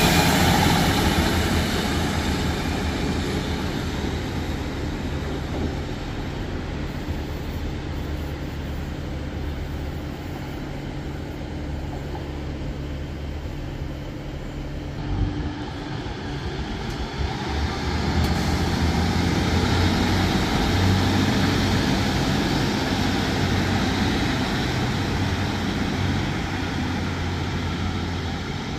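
Northern diesel multiple units at a station platform: a departing unit's diesel engine drones loudly at first and fades as it pulls away. About 18 seconds in, a second unit is heard coming in and growing louder, with a brief thump before that.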